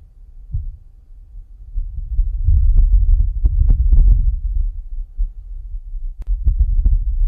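Deep wind rumble buffeting a microphone, swelling about two seconds in, with a few sharp crackles: a recording of wind gusts on the surface of Mars.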